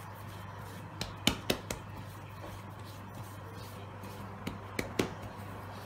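Hands kneading a ball of baguette dough on a floured worktop: soft handling with sharp slaps and taps against the counter in two clusters, about a second in and again near the end, over a steady low hum.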